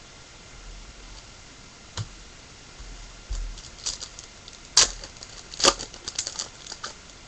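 Trading cards and a pack wrapper being handled: scattered sharp clicks and short crackles, the two loudest about a second apart a little past the middle.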